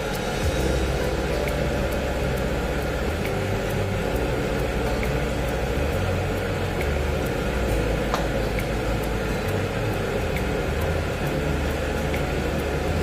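Steady rumbling hiss of a pot of chicken and bamboo shoots boiling hard on the stove.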